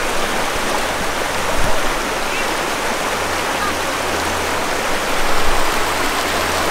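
Small river rushing steadily over shallow rapids.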